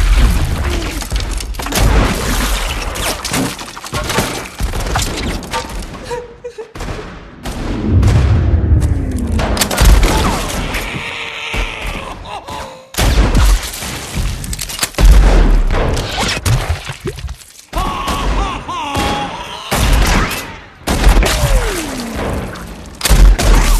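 Movie gunfight: repeated gunshots and bullet impacts, with a wounded man screaming and yelling between the shots. There are a few brief lulls.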